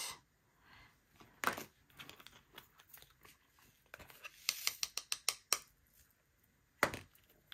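Resin diamond-painting drills being picked up and pressed onto the canvas with a drill pen: light clicks and taps, one about a second and a half in, a quick run of them a little past halfway, and another near the end.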